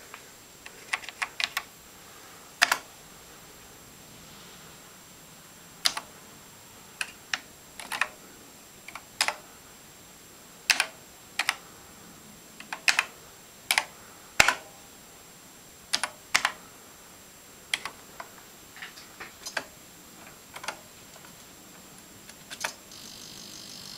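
Keys of a ZX Spectrum keyboard being pressed, irregular clicks singly and in short runs with pauses between, as a command is typed in. A faint steady high whine sits under it, and a buzzing tone starts near the end.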